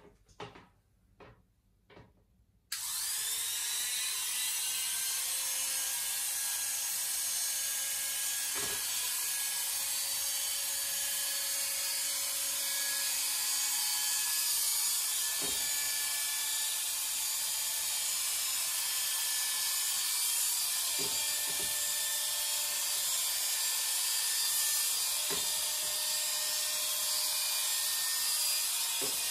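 A few quiet handling clicks, then corded electric hair clippers switch on about three seconds in and run steadily, a high buzzing hum as they cut short head hair, with a few faint knocks.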